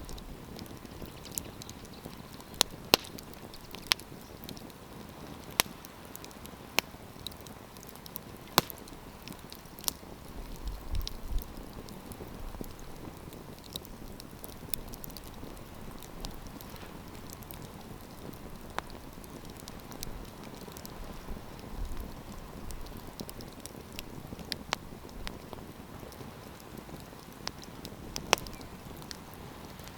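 Wood campfire crackling: a steady soft hiss with irregular sharp pops and snaps, a few of them loud, with brief low wind rumble on the microphone now and then.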